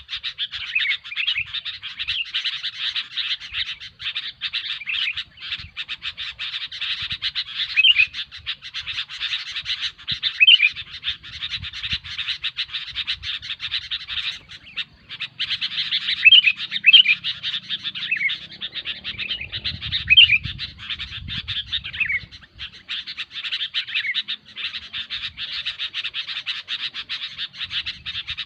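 Sooty-headed bulbuls calling noisily: fast, continuous chattering with short whistled notes that slide down in pitch every few seconds.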